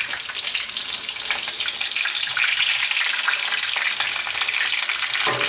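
Panko-breaded chicken cutlets shallow-frying in hot oil in a large pan, a steady crackling sizzle as the second side browns.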